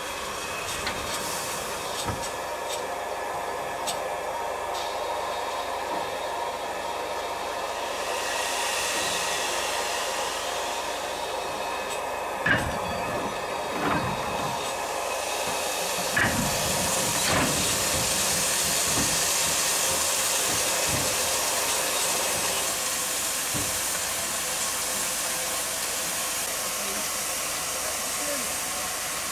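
Steam train with a steady hiss of steam, swelling in the middle, and a few sharp metallic knocks about halfway through.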